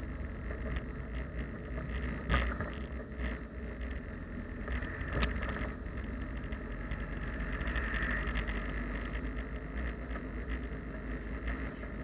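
Steady low engine and road rumble of a car driving, heard from inside the cabin. Two short sharp knocks stand out, one about two seconds in and another about five seconds in.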